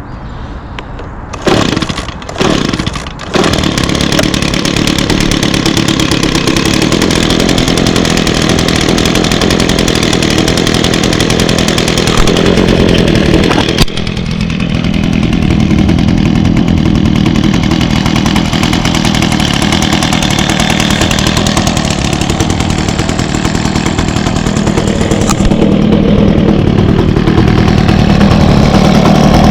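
Echo PB265L backpack leaf blower's 25.4cc two-stroke engine being started: a few short bursts, then it catches about three seconds in and runs steadily. The engine note drops suddenly about 14 seconds in and climbs again near the end. It starts up very well.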